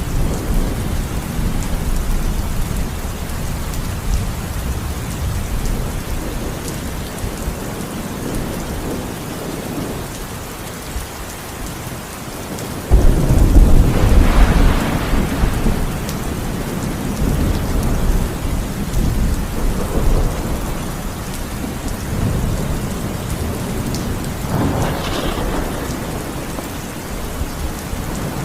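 Heavy rain falling steadily through a thunderstorm, with low rolling thunder. A sudden, loud clap of thunder breaks about halfway through and rumbles on for a couple of seconds, with smaller swells of thunder later.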